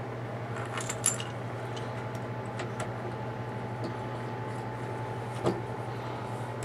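Faint clicks and taps of a plastic pistol grip and its bolt being handled and fitted to a Mossberg 500 shotgun receiver, a few light knocks about one second in and again near the end, over a steady low hum.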